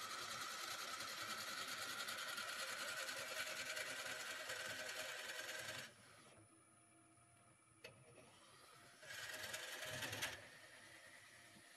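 A twist drill bit boring into the end grain of a stone pine vase neck spinning on a wood lathe: a loud, steady cutting noise for about the first six seconds. It then drops to the quieter hum of the running lathe as the bit is eased back, with a single click, and a second short burst of drilling about nine seconds in.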